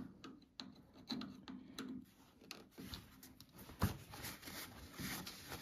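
Faint scraping and small metallic clicks of a screwdriver turning a hose clamp on a rubber fuel line, tightening a leaking joint, with one sharper click a little under four seconds in.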